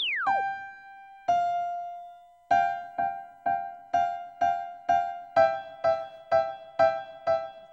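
Piano notes struck one at a time: a single held note, then an even run of notes about two a second, mostly moving back and forth between two close pitches. The piano run is preceded by a short falling whistle-like glide at the very start.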